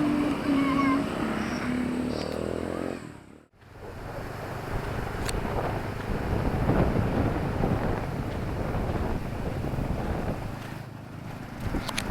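Town street traffic: a motor vehicle's engine running, then steady street noise. About three and a half seconds in the sound drops out almost to silence for a moment, then the traffic noise returns.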